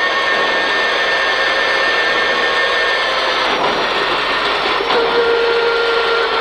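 Inside the cabin of a Peugeot 306 RWD rally car: engine running under load with tyre and road noise, at a fairly steady note. The crew say the engine doesn't want to go and won't rev out freely.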